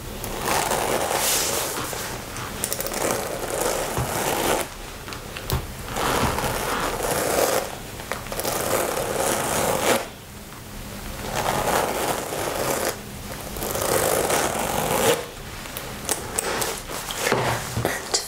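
Hands rubbing and scratching over a leather jacket, a rustling, scraping noise in long strokes of a few seconds each, with short pauses between them.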